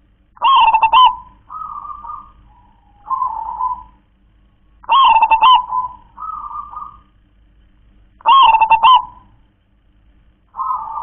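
A zebra dove (perkutut) sings its cooing song, the phrase that fanciers write as 'klar-ke-tek-kong'. Each phrase opens with a loud rolling coo and ends in one or two softer coos. It repeats about every four seconds: three full phrases, and a fourth begins near the end.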